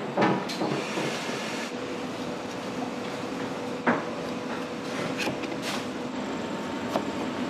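Commercial kitchen clatter: a handful of scattered knocks and clinks of utensils and containers over a steady background hum.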